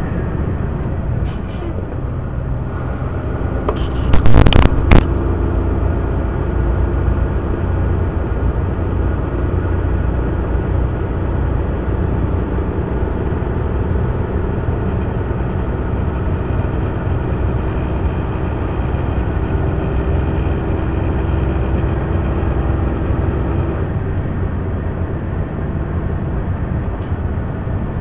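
Steady low rumble of engine and road noise inside a truck cab cruising at highway speed. About four to five seconds in, a short cluster of loud, sharp knocks stands out.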